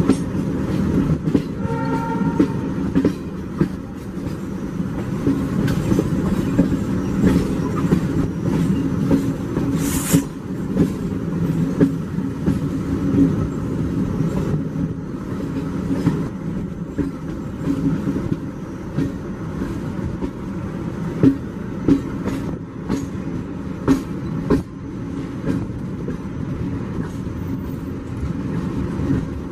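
Train running at speed, heard from aboard: a steady rumble with the wheels clicking over rail joints, and a brief horn note about two seconds in.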